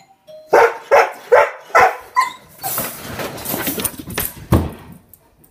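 A faint two-note doorbell chime, then a dog barking loudly about five times. After that comes a stretch of rattling and clattering of the wire crate as he pushes his way out, with one loud knock near the end.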